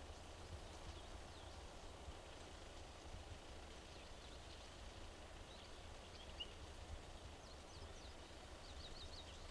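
Faint outdoor ambience: small birds chirping in short high notes, in small clusters about four seconds in, around six seconds and near the end, over a steady low wind rumble.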